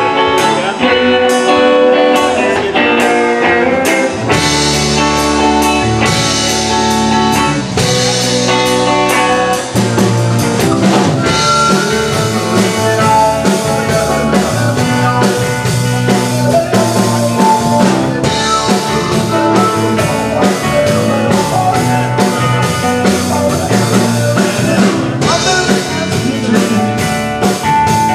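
A live rock band playing: electric guitars over a drum kit, with keyboard.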